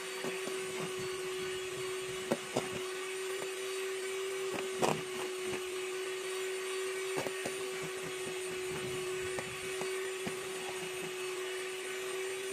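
Electric hand mixer running steadily at high speed, its beaters whipping egg-white boiled icing in a stainless steel bowl. Its motor whines on one steady tone, and the beaters knock against the steel bowl a few times.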